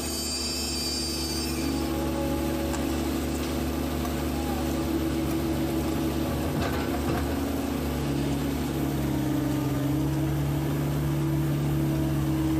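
PC120 hydraulic excavator's diesel engine running steadily, heard from inside the cab, with a steady hum from the hydraulics. The engine note shifts in pitch about eight seconds in as the machine's load changes.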